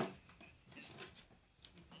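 Australian silky terrier puppies jostling in a wooden box: a sharp knock at the very start, then faint scratching and shuffling of paws with a brief squeak.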